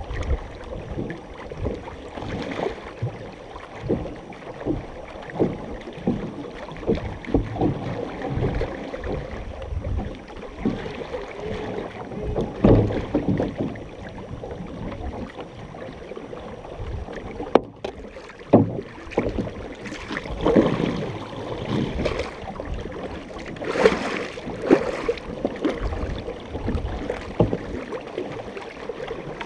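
Paddles stroking the water and water splashing and sloshing along the hull of a large multi-paddler canoe, heard from close to the waterline, with a splash roughly once a second.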